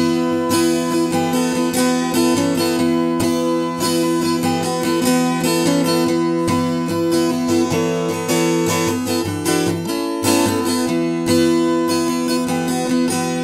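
Nashville-tuned acoustic guitar with a three-string partial capo on the A, D and G strings at the second fret, strummed in a steady rhythm with open strings droning. It gives a DADGAD-style open tuning a whole tone higher, and the Nashville stringing makes it sound a little trebly.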